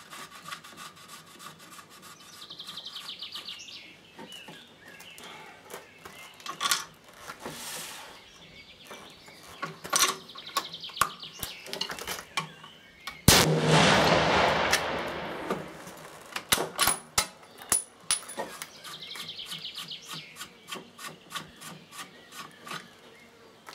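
Metal scraping and clicking as a muzzle brake is threaded onto a rifle barrel, with birds chirping at times. About halfway through comes a single sharp report from a 6.5 Remington Short Action Ultra Magnum rifle fired with a T1 Terminator muzzle brake, followed by about two seconds of rushing noise, and then more scattered clicks.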